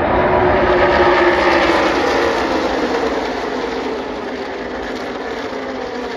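A pack of stock-car V8 engines at full racing speed sweeping past together, many engine notes falling in pitch as the cars go by. It is loudest about a second in and eases off over the last couple of seconds as the pack moves away.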